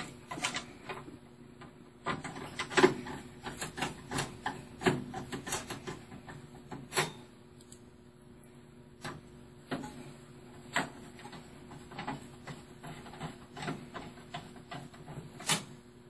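Irregular small clicks and taps of screws and a Phillips screwdriver against the metal chassis and motherboard of a Dell OptiPlex 380 low-profile desktop, as the motherboard screws are fitted. The sharpest tap comes about three seconds in.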